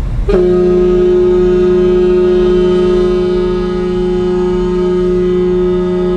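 The ship's whistle (horn) of the departing ferry Sunflower Furano sounds one long steady blast as the ship leaves the quay, the departure signal.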